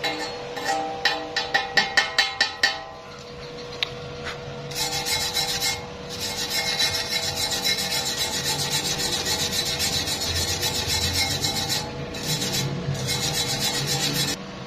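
Chipping hammer tapping along a stick-weld bead on thin angle iron, about ten quick strikes. After a short pause a rotary wire brush scrubs the weld clean in a steady run, broken by a few short gaps.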